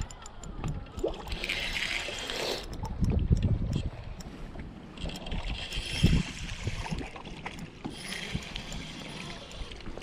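Wind buffeting the microphone and choppy waves slapping against a fishing boat's hull, with a spinning reel whirring in three short spells, about a second each, as a hooked crappie is reeled to the boat.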